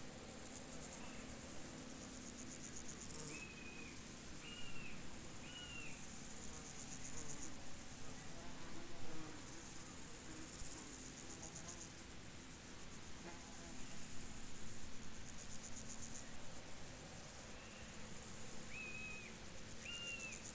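Field insects trilling in repeated high, pulsing bursts of a second or two each. Three short, higher chirps come in quick succession a few seconds in, and again near the end.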